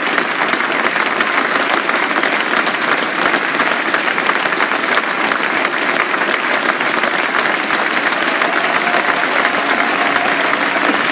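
Crowd of spectators applauding: dense, steady clapping.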